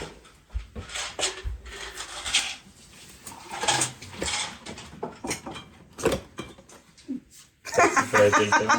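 Cardboard donut box being handled and opened: irregular rustling, scraping and knocking of the cardboard. Near the end a person's voice, laughing, comes in.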